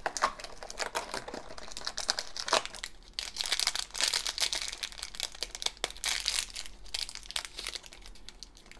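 Crinkly plastic blind bag being handled and torn open by hand: dense crackling and rustling, busiest in the middle. Near the start, fingers work open the box's perforated cardboard door.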